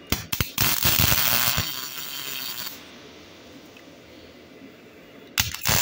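Electric arc welder tack-welding a steel strut joint: a few sharp crackles, then a loud sputtering, hissing arc for about a second that fades off. The arc strikes again near the end.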